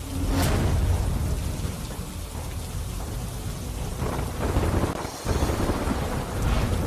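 Floodwater rushing over a dam and churning in the channel below it: a steady, heavy rush of turbulent water, loudest in the low range.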